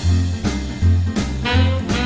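Big band playing a boogie-woogie blues: a heavy, repeating bass figure under horn-section riffs.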